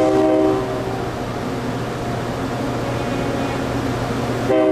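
MBTA commuter train's horn sounding a short chord blast at the start and another beginning near the end. Between the blasts the train's diesel locomotive hums steadily.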